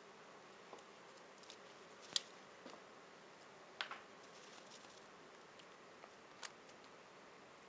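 A few faint, scattered clicks and taps over a steady low hiss, with a sharper click about two seconds in and a short rattling click a little before four seconds.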